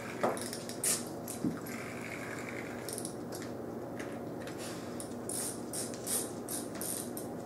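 American cocker spaniel puppy playing with a cat's hanging pull-string toy: a short falling squeak in the first second and a softer one about a second later, then a run of light clicks and scrapes from its claws on the tile floor and the toy knocking as it tugs and jumps at it.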